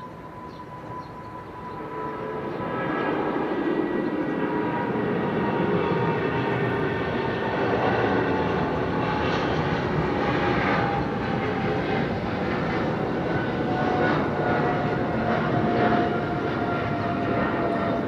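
Jet airliner engines at takeoff power, growing louder over the first few seconds and then holding, with whining tones that slowly fall in pitch as the aircraft goes by.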